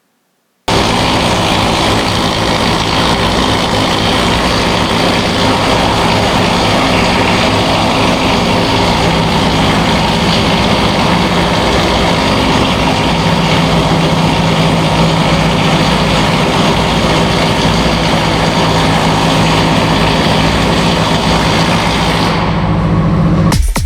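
Loud steady machinery noise with a low hum under it, starting suddenly just under a second in and cutting off near the end.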